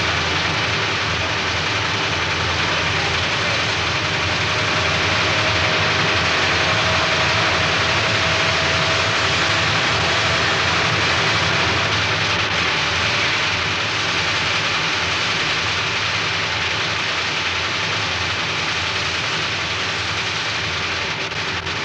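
Metal-turning lathe and workshop machinery running steadily: a constant mechanical hum under a loud hiss, with a faint thin whine coming and going in the middle.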